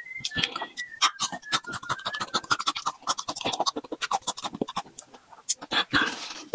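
Close-miked crunching and chewing of raw single-clove garlic: a fast, irregular run of crisp crunches and wet mouth clicks, with a short breathy rush near the end.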